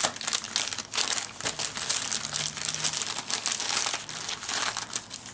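Clear plastic bag crinkling and rustling as hands open it and pull out a stack of wooden picket-fence pieces, a steady run of irregular crackles.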